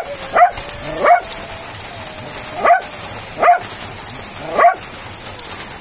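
A dog barking about six times in short, sharp barks, with a longer pause midway, over the steady hiss of heavy rain.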